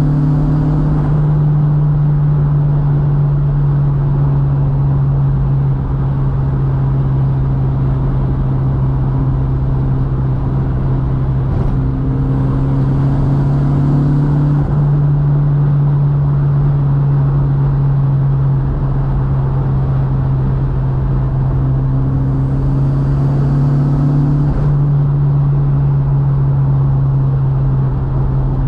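Mk2 Volkswagen's 1.8-litre turbo four-cylinder engine pulling steadily at near-constant revs while driving, with road and tyre noise. The drone holds an even pitch throughout, with a brief extra hiss twice, about midway and again near the end.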